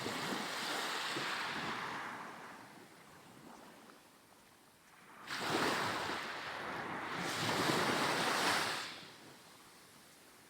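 Sea waves breaking and washing up a sandy beach, twice: a wash at the start that fades over about three seconds, then a louder one about five seconds in that lasts about three and a half seconds.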